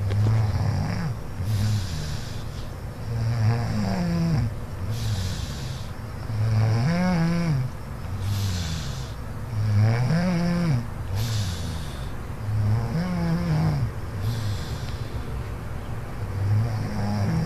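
Snoring: a low, rattling buzz on breath after breath, repeating every second or two, alternating with breathy hiss, and several breaths carry a wavering pitch that rises and falls.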